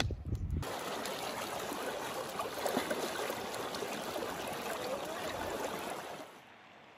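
Shallow mountain creek rushing over rocks as a child wades through it, an even rushing sound that stops suddenly near the end. It opens with a brief low rumble.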